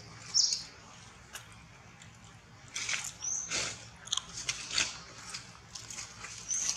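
A dry leaf crackling and crunching as a baby macaque chews and handles it, in quick clusters of small crackles, thickest in the middle. A few short high chirps come through as well.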